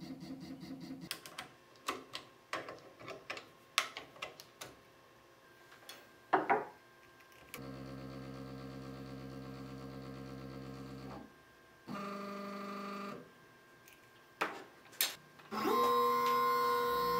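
CNC router stepper motors whining in separate moves as the machine jogs, with a steady hum while the Z axis slowly lowers the bit onto a metal touch plate to probe its height. Scattered clicks and taps come between the moves, and a louder motor whine starts near the end.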